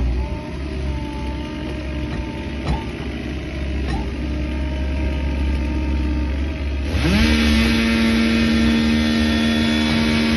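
Excavator engine running under load, steady at first. About seven seconds in it revs up quickly and holds a high, steady pitch, louder than before.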